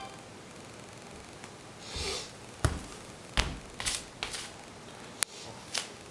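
Hands handling small hard objects in a small room: a soft rustle, then a series of sharp clicks and taps, the sharpest about two and a half seconds in and about five seconds in.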